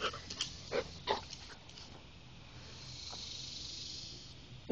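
Chocolate Labrador retriever breathing and panting close by, with a few short, sharp sounds in the first second and a half and a steady hiss a little later.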